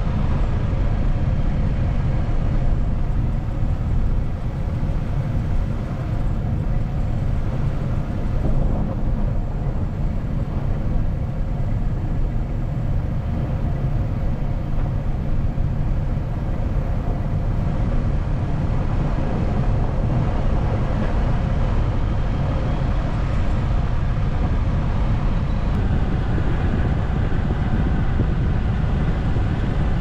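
Steady low rumble of a car being driven on a snow-covered road, heard from inside the cabin: engine and tyre noise.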